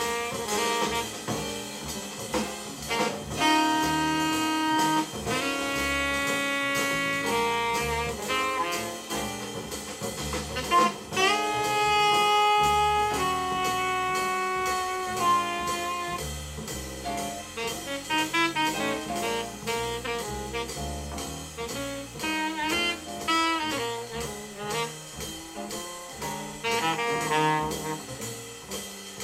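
Jazz alto saxophone recording played back from vinyl over a hi-fi system: the saxophone holds long notes with a bent, scooped note about eleven seconds in, then plays quicker runs in the second half, backed by a rhythm section with drums.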